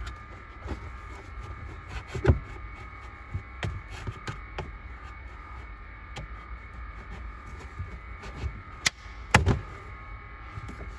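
Carpeted trunk side liner of a Saab 9-3 being pried loose with a plastic trim removal tool: scattered clicks and knocks of clips and panel, the loudest pair near the end, over a faint steady hum.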